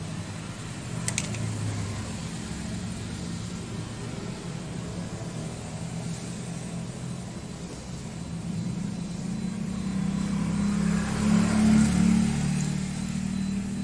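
An engine running with a steady low hum that swells louder and peaks about eleven to twelve seconds in. A single sharp click comes about a second in.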